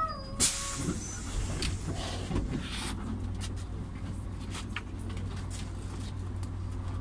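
Inside a Volvo Carrus N204 City bus: a steady low engine hum, with a short, sharp hiss of compressed air from the pneumatic system about half a second in and a longer hiss between two and three seconds in. Scattered rattles and clicks follow, and a faint wavering tone fades out in the first second.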